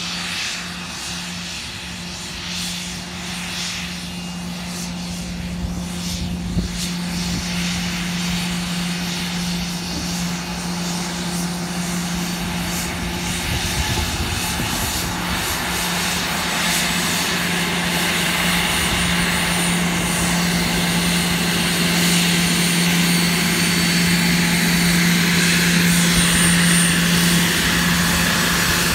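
Twin Rolls-Royce AE 3007 turbofans of an Embraer ERJ-135LR regional jet running at taxi power: a steady low hum and jet rush that grow louder as the aircraft approaches, with a thin high whine coming in about halfway through.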